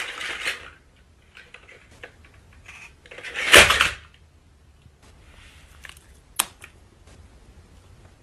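Battery-powered toy dinosaur on a wooden floor: faint mechanical clicking and knocking, with one loud clatter about three and a half seconds in as it topples over.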